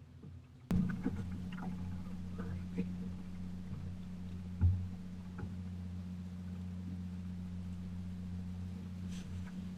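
A boat motor running steadily with a low hum. It starts abruptly about a second in, with a few light knocks over it and one louder thump about halfway through.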